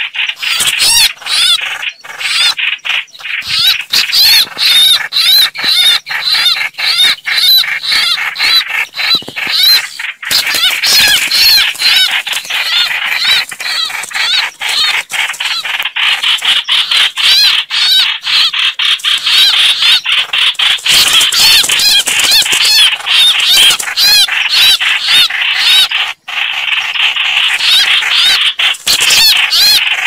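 Bulbul distress calls: a dense, continuous run of rapid, harsh chattering notes, broken by many sharp clicks.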